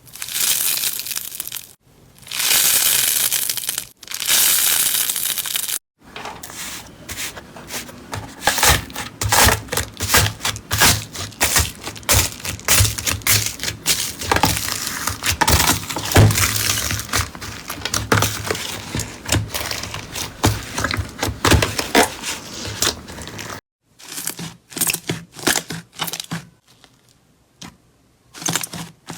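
Slime being handled by hand: three smooth swishing rushes in the first six seconds, then many seconds of dense crackling and popping clicks as it is pressed and squeezed, thinning to scattered clicks near the end.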